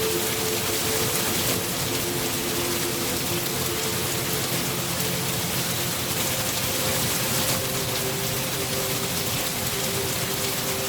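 Steady rain falling, an even hiss with fine patter, with a few soft held tones underneath that shift to new notes every few seconds.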